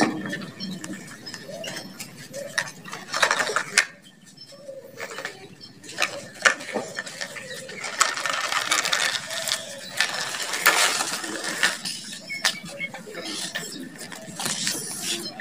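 Plastic toy dump truck handled on gritty dirt: its tipper bed and parts clicking and rattling, with scraping of plastic and wheels over sand and gravel, in many separate clicks and short scrapes.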